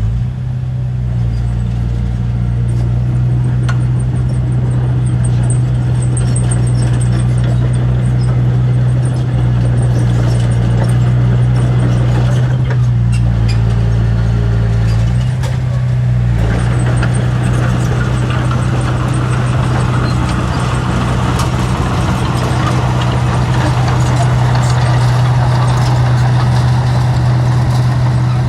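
Diesel engine of heavy earthmoving machinery, a bulldozer or dump truck, running steadily with a deep constant hum. The engine note shifts briefly about halfway through.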